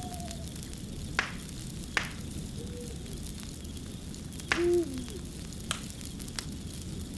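Wood fire crackling over a steady low rumble, with sharp pops about a second in, at two seconds and several more later. A short low pitched call is heard around three seconds in, and a louder one about four and a half seconds in.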